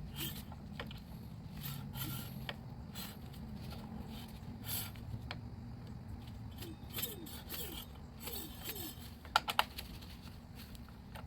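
Hand tools and small metal parts clinking and clicking during work on an electric scooter's rear brake, with a few short squeaks in the middle and a quick run of sharp clicks near the end, the loudest sounds.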